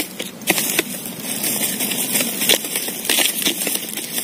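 Wind buffeting the microphone in irregular crackling gusts, with rushing noise throughout.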